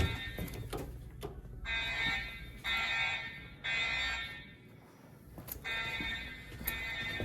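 EST3 voice-evacuation speaker strobes sounding the Code 3 temporal evacuation tone: three short, evenly spaced tones, a pause of about a second and a half, then three more.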